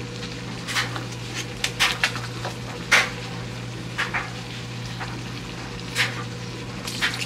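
Gumbo base of peppers, onions and tomato cooking in an enameled Dutch oven, with scattered sharp pops and clicks over a steady low hum.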